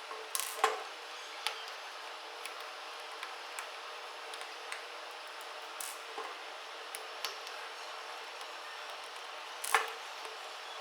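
Scattered light clicks and taps of a screwdriver and small metal parts while the four housing screws of a DeWalt angle grinder are undone. Two sharper knocks stand out, about half a second in and near the end.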